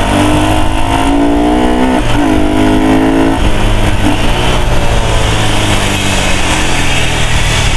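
A 135 cc motorcycle engine heard from the rider's seat, accelerating. Its pitch climbs, drops about two seconds in, climbs again, then settles into steadier running with wind noise over the microphone.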